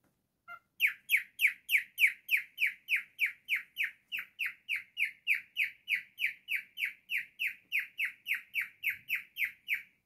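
Cockatiel calling a long, even run of short, slightly falling chirps, about three a second, after one brief lower note at the start.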